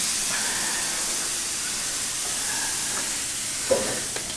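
Marinated chicken sizzling on the hot grates of a gas grill, a steady hiss. A brief knock sounds near the end.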